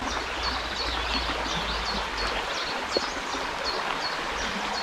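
River current rushing steadily over stones, with a bird repeating a short, high, down-slurred chirp about two or three times a second.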